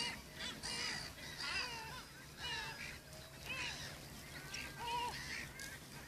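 A colony of black-headed gulls calling: many harsh, short, arching calls overlapping one after another, about one or two a second.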